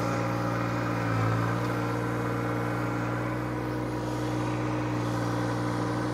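John Deere 1025R's turbocharged three-cylinder diesel engine running steadily as the tractor pushes its loader bucket into a dirt pile, briefly growing louder about a second in.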